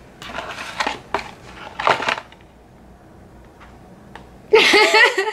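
A paper fast-food bag crinkling and rustling under a hand for about two seconds, then a woman's voice near the end.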